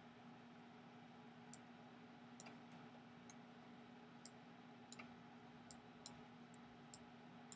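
Near silence with about a dozen faint, scattered computer mouse clicks over a low steady hum.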